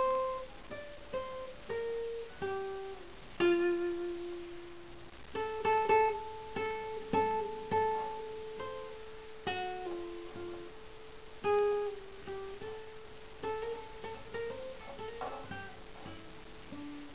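Nylon-string classical guitar played fingerstyle: a slow melody of single plucked notes and a few chords, some notes left ringing for several seconds.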